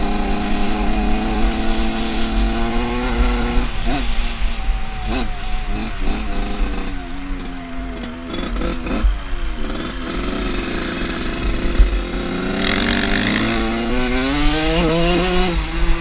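Off-road vehicle engine being driven: it runs steadily, eases off with the pitch dropping and a few short throttle blips from about four seconds in, then revs up again, the pitch climbing steadily, from about twelve seconds.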